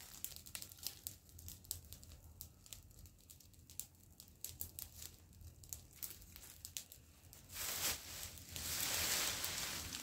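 Dry grass and brush crackling and rustling: scattered sharp crackles at first, then a louder, continuous dry rustle starting about eight seconds in.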